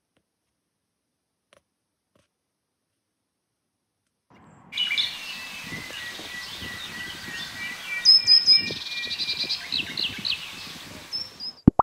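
Near silence for about four seconds, then songbirds singing and chirping over outdoor background noise, with a rapid trill about halfway through and a sharp click just before the end.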